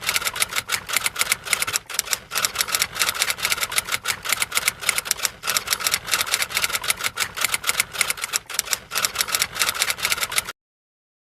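Rapid, even clicking, several clicks a second like fast typing, that cuts off suddenly about ten and a half seconds in, leaving dead silence.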